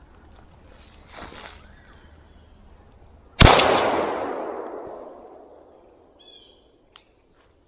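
A single gunshot fired at a squirrel about three seconds in, its report echoing through the woods and dying away over about two seconds. Dry leaves rustle before it, and a few short chirps and a sharp click come after.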